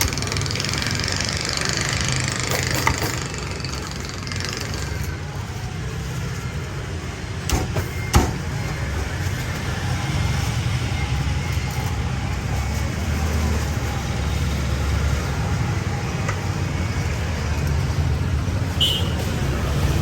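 Steady rumble of passing street traffic, with two sharp knocks about eight seconds in.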